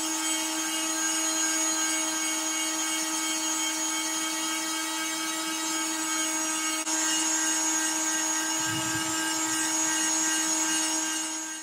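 Random orbital sander running against a poplar box on a wood lathe: a steady motor whine over the hiss of sandpaper on wood. A brief low rumble comes near nine seconds in.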